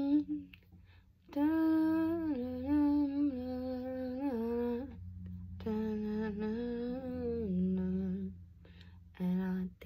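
A woman humming a slow, wordless tune in two long phrases, with a few short notes near the end.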